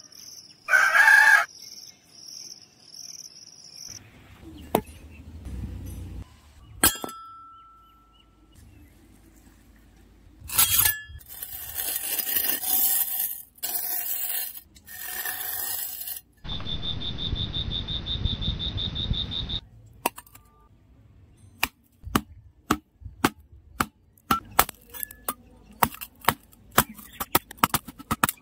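A rooster crows once about a second in, over high, repeating bird chirps. Later a small hand hoe chops into hard, dry soil in a run of sharp strikes, a couple a second. About midway there is a steady noise with a high whine lasting about three seconds.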